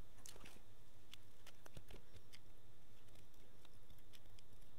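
Faint scattered ticks and light rustles as solder is fed onto a banana-jack joint with a soldering iron, with a low steady hum underneath.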